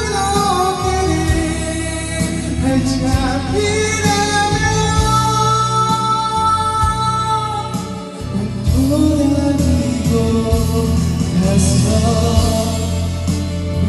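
Karaoke singing: a voice sings a Korean pop song live over a karaoke machine's backing track, holding long notes. The accompaniment dips briefly about eight seconds in, then comes back fuller.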